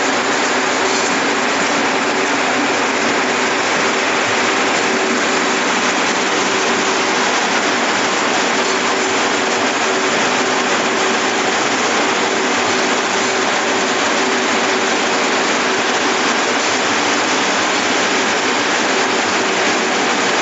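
Circular looms weaving tubular fabric, running steadily: a dense, even clatter with a faint steady hum underneath.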